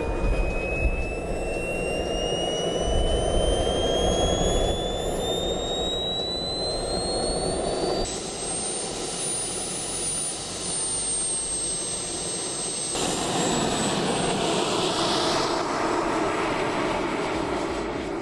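The jet-powered RC car's miniature turbine engine is spooling up in an engine run-up. Its whine climbs steadily in pitch for about eight seconds, then holds high and steady over a dense jet roar.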